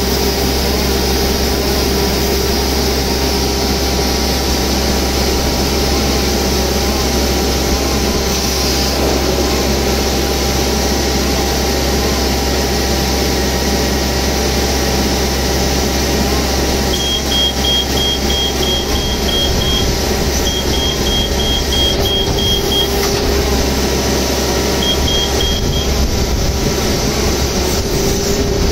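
A machine or vehicle running steadily, with a constant loud hum. From past the halfway point, runs of rapid, short, high electronic beeps come and go, about three or four a second.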